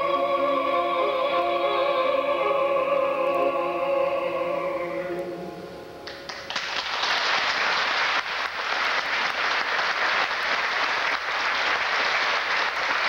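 Singers holding a long final chord that fades out about five seconds in, followed about a second later by audience applause that carries on to the end.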